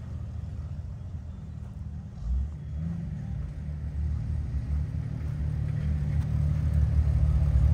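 Off-road vehicle's engine running with a low rumble that grows steadily louder through the second half.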